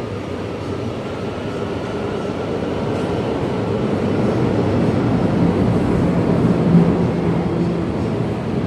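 Hong Kong MTR metro train pulling into an underground station behind platform screen doors: its rumble builds steadily, is loudest about seven seconds in as the cars run past, then eases slightly.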